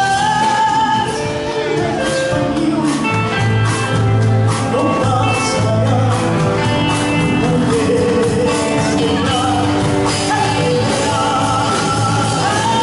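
Music: a song with a singing voice over instruments and a steady beat.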